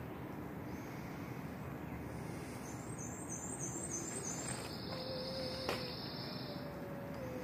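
Insects trilling in high, pulsing buzzes from about two and a half seconds in until about six and a half, over a steady low outdoor background noise. A single click comes near six seconds.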